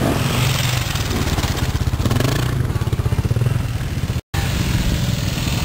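Motorcycle engine running steadily near idle, its exhaust pulses rapid and even. All sound cuts out for a split second a little past four seconds in.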